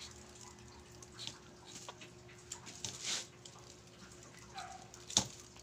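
Quiet scraping and small clicks of a chayote being peeled by hand over a stainless steel strainer, with soft rustles of a plastic bag. A brief faint squeak comes about four and a half seconds in, and a sharp click just after it.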